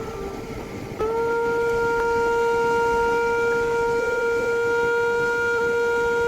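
Background music: a flute holding one long, steady note. A lower, quieter note gives way to it about a second in.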